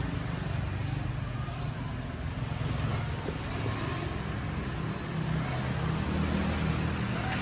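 A steady low motor rumble, even throughout, with a faint hiss above it.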